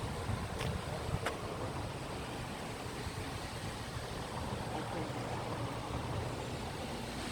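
Stream water rushing steadily, running high the day after rain, with a low rumble of wind on the microphone. Two faint clicks come about half a second and a second in.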